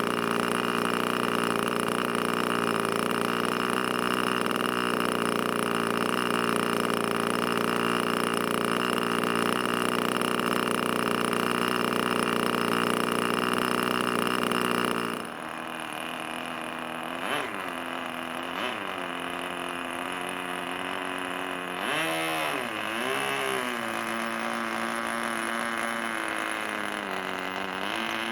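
Small model-aircraft glow engine running steadily at high throttle. About halfway through it drops suddenly to a lower, quieter setting, and its pitch dips and comes back up several times.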